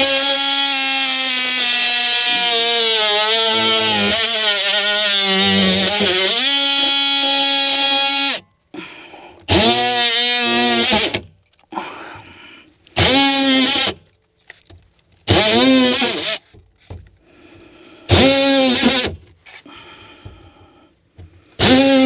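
Cordless oscillating multi-tool cutting a hole in ceiling sheetrock. It runs steadily for about eight seconds, its pitch wavering as the blade loads in the drywall, then is triggered in short bursts of about a second each, four or five times, each rising and falling in pitch.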